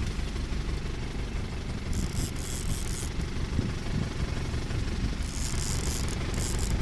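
A fishing boat's engine running with a steady low rumble, with two spells of hiss over it, about two seconds in and again just past five seconds.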